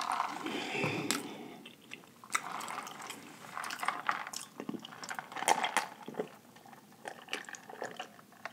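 Close-miked chewing of seafood, with wet mouth sounds and irregular small clicks.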